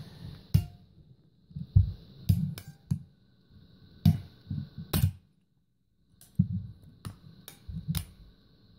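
Steel pliers clicking and clinking as two pairs grip and pull a washer transmission clutch spring to re-stretch it, about ten irregular sharp clicks with soft handling bumps between them. The spring is being stretched because it has worn out and lets the clutch slip, so the washer won't spin.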